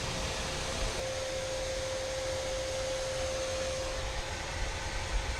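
Shop vac running on its exhaust (blower) side, pushing air into a pickup's exhaust system to pressurize it for leak-finding: a steady rushing with a steady whine that gets stronger about a second in.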